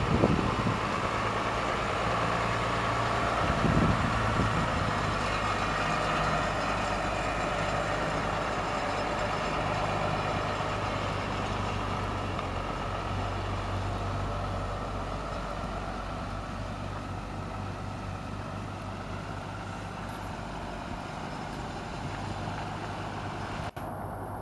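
1995 Ford school bus engine running steadily as the bus drives slowly around, a low hum that gradually fades as the bus moves away. There are two brief louder rushes in the first few seconds.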